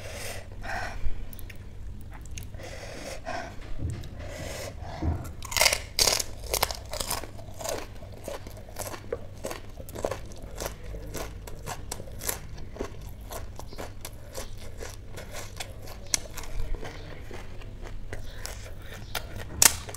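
Close-miked crunching and chewing of pani puri: the crisp, hollow fried puri shells cracking between the teeth, in a rapid run of crunches that grows denser and louder about five or six seconds in.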